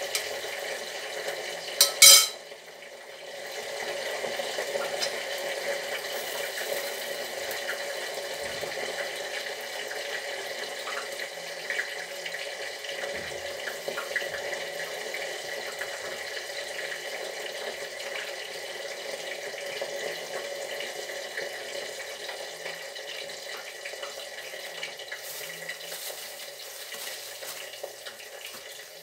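Hot oil sizzling steadily around frying corn kernels, with one sharp knock about two seconds in.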